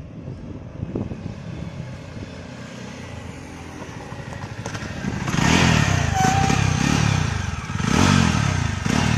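Jawa 42's single-cylinder engine running as the motorcycle approaches, growing much louder about five seconds in as it comes close. Near the end the engine note rises and falls a couple of times on the throttle.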